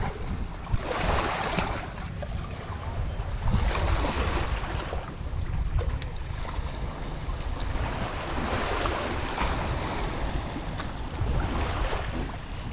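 Small waves washing onto a sandy shore, swelling and fading every few seconds, with wind rumbling on the microphone.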